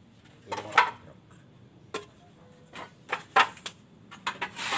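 Clay roof tiles clacking and knocking against each other as they are handled, in a handful of short, sharp clacks, the loudest about a second in and another about three and a half seconds in.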